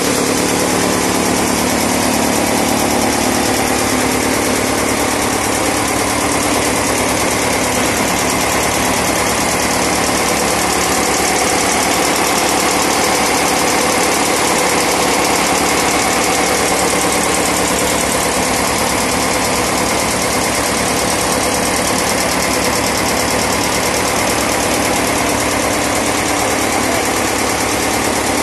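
Engine of a wheeled bhusa pankha (straw-chaff blower) machine running steadily at one constant speed, loud and unchanging.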